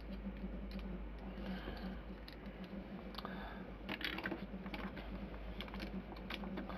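Hands handling a plastic action figure and toy motorbike: faint scattered clicks and rattles of plastic parts, the clearest about four seconds in, over a faint steady low hum.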